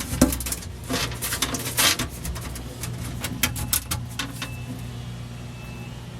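Plastic refrigerator crisper drawer being pulled out and handled: scattered clicks and knocks over a steady low hum.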